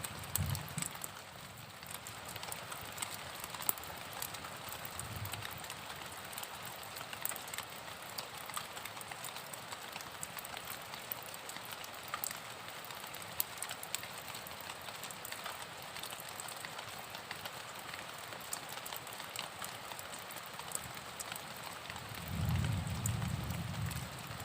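Steady rain falling, a dense hiss of drops with many small individual patters. A low rumble lasting about two seconds comes near the end.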